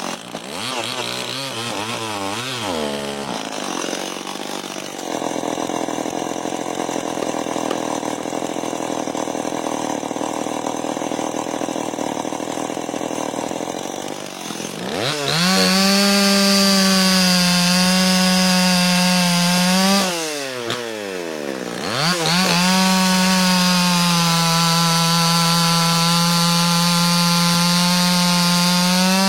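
Two-stroke chainsaw cutting wood. The engine blips up and down at first, runs at a lower speed for several seconds, then is held at full throttle. About two-thirds of the way through it drops back briefly, then goes back to full throttle.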